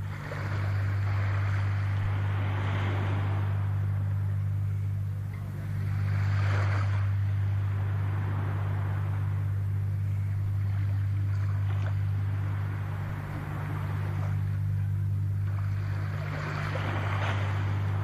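Sea waves washing in, swelling and falling away every four to five seconds, over a steady low hum.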